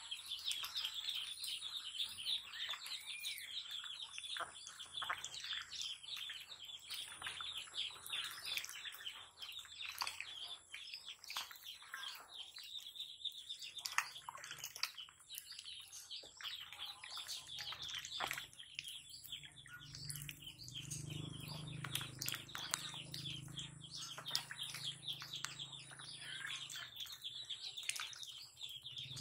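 Domestic ducks dabbling in shallow muddy water make many short splashes and bill clicks. Small birds chirp steadily behind them.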